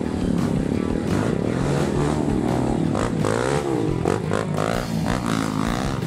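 Dirt bike engines revving, their pitch rising and falling over and over, with more than one bike running at once.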